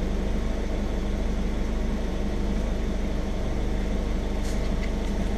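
Audi TT Mk1 engine idling steadily, fully warmed up, with the coolant at about 106 °C.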